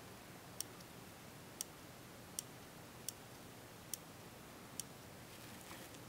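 Pentel P200-series mechanical pencil in a 3D-printed body, its push button clicked repeatedly to advance the lead: six sharp, light clicks a little under a second apart.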